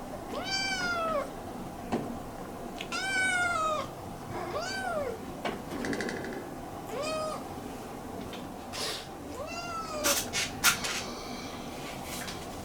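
Minuet kitten meowing five times, each call rising and then falling in pitch, with a few seconds between them: it is shut in a cage and calling to be let out. A few sharp clicks fall between the meows, most of them near the end.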